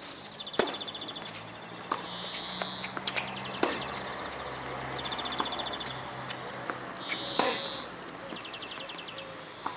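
A tennis rally: a serve about half a second in, then the ball struck by rackets and bouncing back and forth, the nearest hits the loudest knocks. Short, high, rapid trills repeat in the background.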